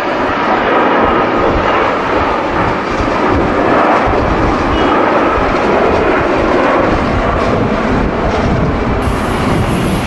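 Jet airliner's engines at takeoff thrust as it rolls and lifts off, a loud, steady rumble with a deep, uneven low end from strong wind buffeting the microphone.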